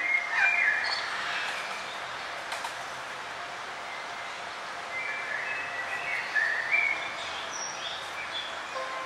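Several small songbirds chirping and trilling over a steady background hiss of forest ambience, with a busy burst of calls in the first second and again from about five seconds in.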